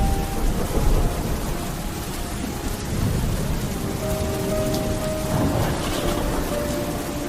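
Steady heavy rain with low rumbling thunder, the rumble strongest about a second in. Faint sustained tones sit underneath.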